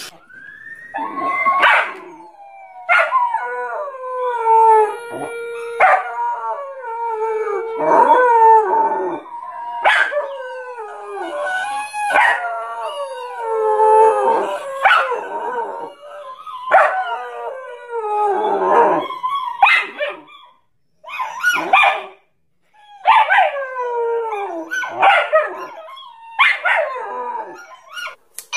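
German Shepherd howling in long, wavering calls, one every two seconds or so, turning shorter and choppier with brief pauses near the end.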